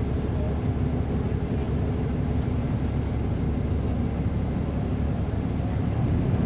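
A 2009 NABI 40-SFW transit bus's Caterpillar C13 ACERT inline-six diesel engine running steadily, heard from the rear seats close to the engine. It gets louder just before the end.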